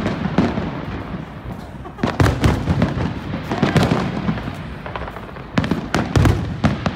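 Aerial fireworks going off: many sharp bangs in quick succession, with a dense run of bursts about two seconds in and another near the end.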